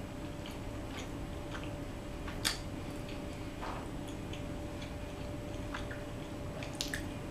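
Sparse small clicks and ticks of a metal fork against a bowl as fettuccine alfredo is twirled and eaten, with soft chewing; the sharpest click comes about two and a half seconds in.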